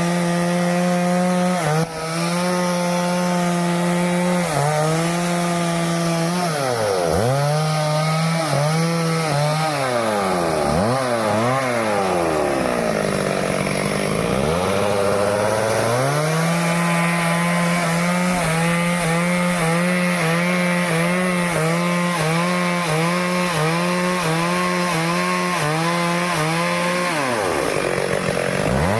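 Stihl two-stroke chainsaw running at high revs while cutting into teak wood. Its pitch sags again and again as the chain bogs under load: once deeply around the middle, then a quick, regular wobble, and one more deep sag near the end.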